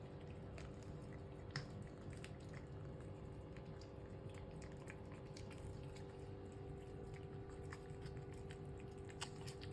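A cat chewing food: faint, irregular clicks of chewing and mouth sounds, over a low steady hum.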